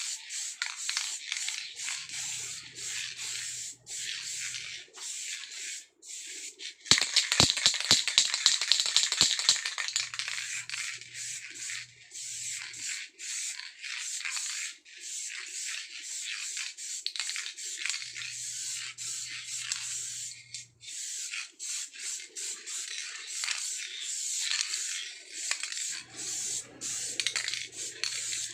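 Aerosol spray-paint can hissing in repeated passes with short breaks, as paint is sprayed onto a bicycle frame. A few seconds in there is a louder stretch of rapid clicking and rattling, and a low hum comes and goes about every eight seconds.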